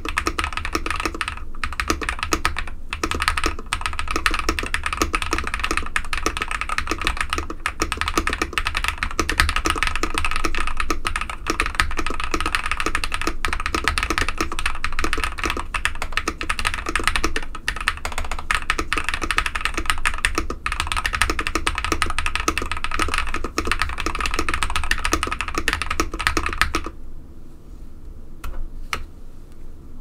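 Fast continuous typing on an Ikki68 Aurora mechanical keyboard with lubed Zaku switches, PBT keycaps, a tape mod and PE foam: a dense run of muted keystroke clacks, the 'tape/PE sound'. The typing stops about 27 seconds in, leaving only a few scattered key presses.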